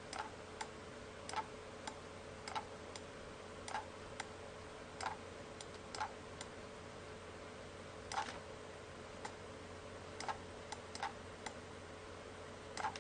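Sparse, light clicks and taps at uneven intervals, about one or two a second, over a faint steady hum.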